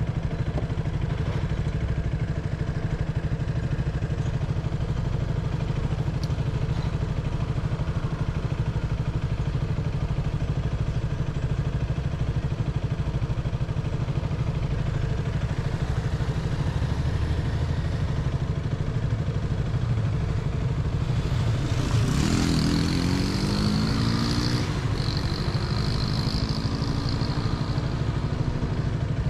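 KTM Duke 200 single-cylinder engine running steadily under way, with road noise. About 22 seconds in, an engine note climbs in pitch twice, with a high whine over it for a few seconds.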